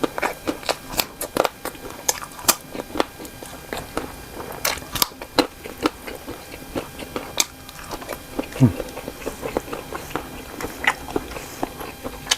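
Close-miked eating of cocktail sausages in chili sauce: biting and chewing with a steady run of short mouth clicks. About two-thirds through there is a brief low falling sound, the loudest moment.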